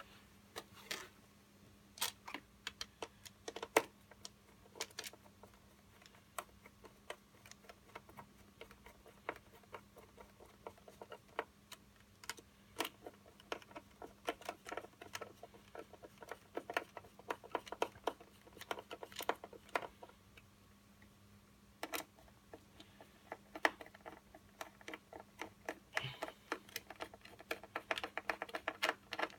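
Irregular clicks and light taps of hands working on an opened hoverboard, handling its plastic casing, wiring and parts as it is put back together.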